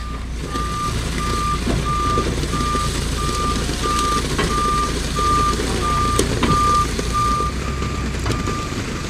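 Vehicle backup alarm beeping steadily at one pitch, about one and a half beeps a second, over the low running of the vehicle's engine, with a few clicks and knocks.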